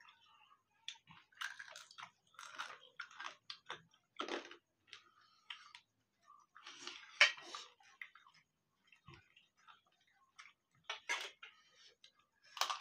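Chewing and mouth sounds of people eating rice and chicken curry by hand, in irregular short wet bursts, the loudest about seven seconds in.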